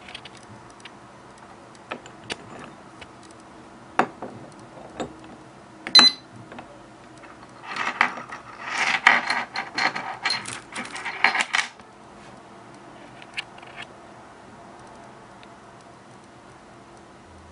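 A stainless-steel alarm padlock and its keys being handled: a few separate metal clicks, then about four seconds of metal rattling and jangling near the middle.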